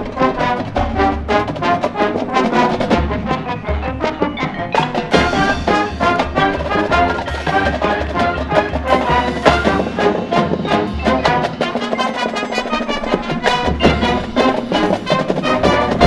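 High school marching band playing its field show: brass winds over a drumline, with frequent percussion hits and a low bass drum pulse.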